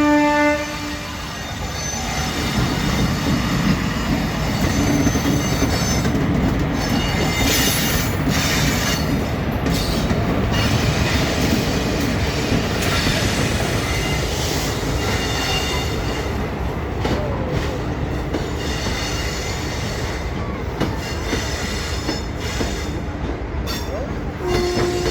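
Twin Indian Railways WAG-7 electric locomotives rolling through a level crossing: a steady rumble of wheels on rail with creaking and thin squeals that come and go. A horn blast fades out within the first second, and a short horn-like tone sounds near the end.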